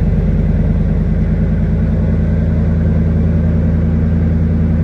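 2002 Lincoln Navigator's 5.4-litre four-valve V8 idling steadily just after a cold start.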